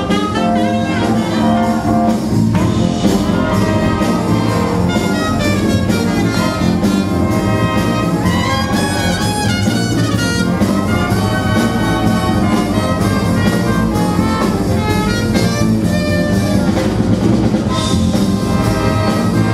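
Live big band playing swing jazz, with the brass section to the fore.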